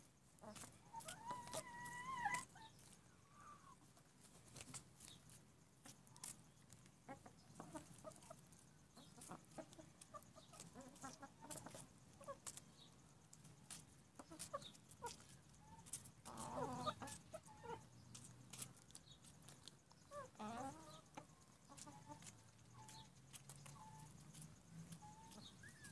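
Backyard hens clucking and calling: a drawn-out call about a second in, then short bursts of clucking in the middle and later on, over scattered faint clicks and taps.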